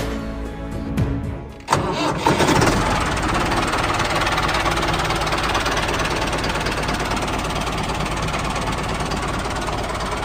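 Background music, then about two seconds in a tractor engine starts suddenly and runs on steadily.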